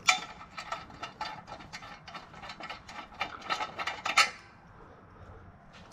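Hand ratchet clicking in quick runs as small bolts are turned, with light metallic clinks, stopping about four seconds in.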